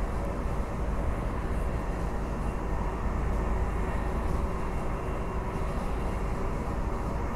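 Transperth B-series electric multiple unit (Bombardier/Downer) running at speed on the Mandurah Line, heard from on board: a steady low rumble of the train in motion, with faint steady higher tones running through it.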